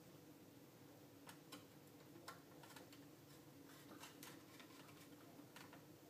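Faint, irregular small clicks of a screwdriver turning small screws into a handheld antenna analyzer's circuit board, over a low steady hum.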